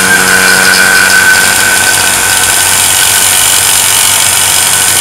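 Small electric vacuum pump running steadily, drawing the air out of a glass jar, with a loud constant hiss. A high whistle fades away over the first couple of seconds.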